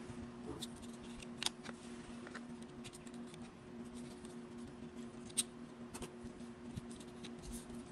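Small plastic clicks and rubbing as a DJI Osmo Mobile 6 folding phone gimbal is handled and its arm unfolded, with two sharper clicks, one about a second and a half in and one past the five-second mark, over a steady low hum.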